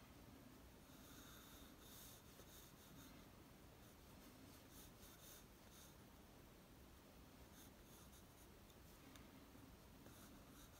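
Faint scratching of a Staedtler graphite pencil on paper, in short, quick strokes that come in several runs.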